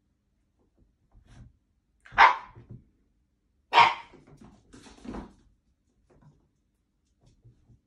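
Italian greyhound barking: two loud barks about two and four seconds in, then a few quieter barks around five seconds.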